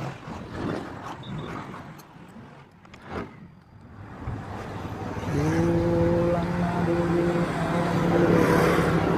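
Road traffic noise, then from about five seconds in a motor vehicle engine running steadily close by with a constant low hum.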